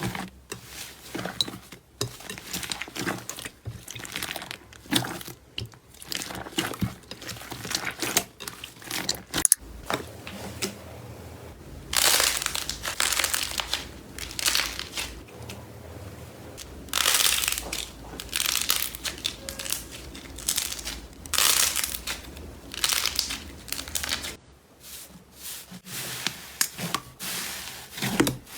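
Slime being squeezed and worked by hand, giving irregular crinkling, crackling sounds with a few louder crunchy bursts.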